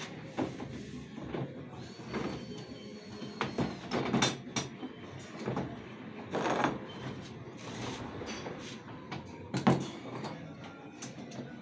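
Wooden strips of a picture-frame stretcher knocking and clattering on a wooden workbench as the frame is set down and shifted into place: a series of separate knocks, the loudest near the end.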